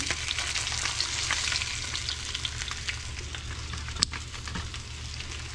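Olive oil sizzling and crackling in a frying pan around blackened jack fillets. There is a single sharp clink of the metal fork against the plate about four seconds in.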